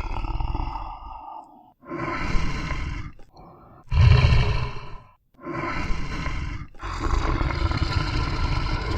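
A large animal roaring again and again: several loud calls, each about a second or so long, with short breaks between them.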